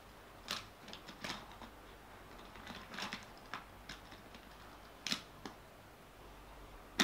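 Scattered sharp plastic clicks and clacks from a die-cast Hot Wheels car on its plastic track set, about eight in all, with the loudest clack at the very end.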